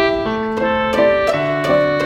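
Background music: a gentle piano melody of sustained notes changing about every half second.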